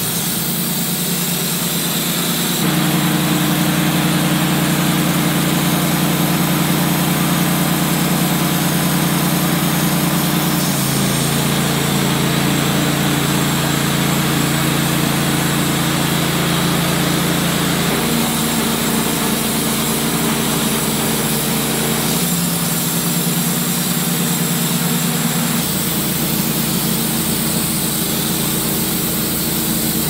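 Wood-Mizer LT15 portable bandsaw sawmill running, its engine humming steadily while the band blade saws through a white oak log. The engine note changes abruptly several times.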